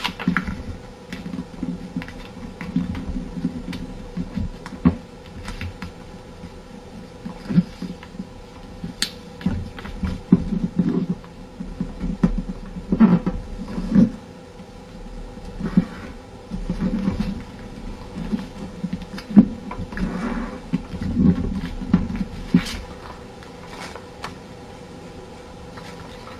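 A sheet of paper being folded and creased by hand on a tabletop: irregular rustles, crinkles and soft taps as fingers press the folds flat, with a few sharper clicks.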